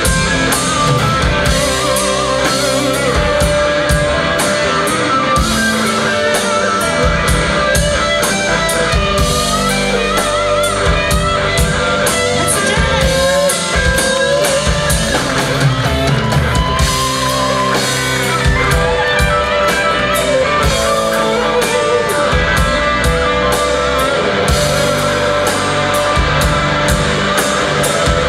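Live rock band playing an instrumental passage: a wavering electric guitar lead over a drum kit and keyboards, with no singing.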